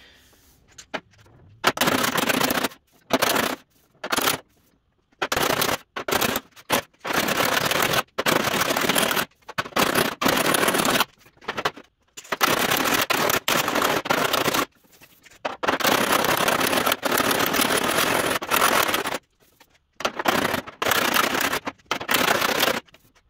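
Abrasive tool working a welded steel seam on a truck door bottom: a harsh scraping noise in blocks of one to three seconds, each starting and stopping abruptly with near silence between.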